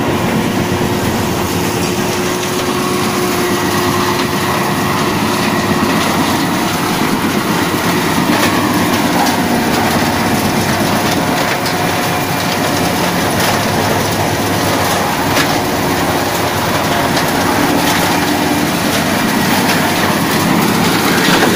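Tractor-driven Seppi M. Starsoil 250 stone crusher working a gravel track: the tractor engine and the spinning rotor make a loud, steady drone, with stones clattering and occasional sharp cracks as they are smashed.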